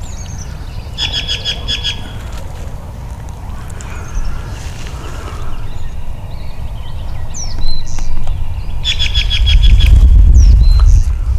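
Wind buffeting the microphone, heaviest near the end, with songbirds calling over it: two short rapid trills about eight seconds apart and a few high down-slurred whistles.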